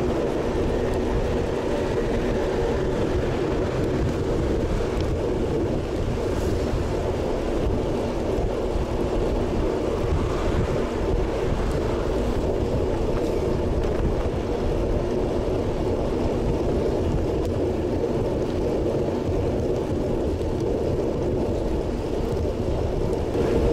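Wind rushing over the microphone of an action camera on a road bike moving at about 33 km/h: a steady, low rumbling noise with a faint tyre-on-road hum beneath it.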